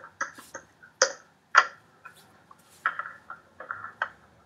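A run of light, irregular clicks and taps, the two loudest about a second and a second and a half in.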